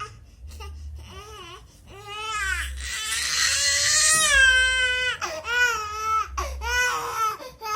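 A baby crying in wails. The crying swells about two seconds in, is loudest in the middle, then breaks into several shorter cries.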